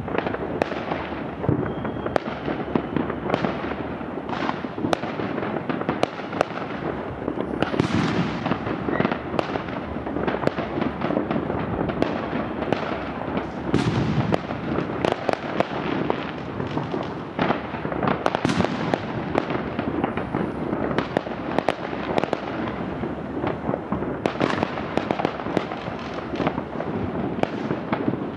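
Many fireworks going off at once: a continuous barrage of overlapping bangs and crackles, several every second, with no let-up.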